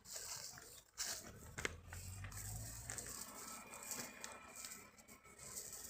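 Faint rustling and crinkling of a nylon cast net being gathered and arranged by hand, with a few sharp clicks, over a steady high hiss.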